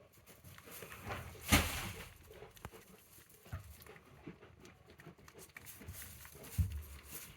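Goats moving about in their pen, with soft patter and scuffling and two louder bumps, about a second and a half in and near the end.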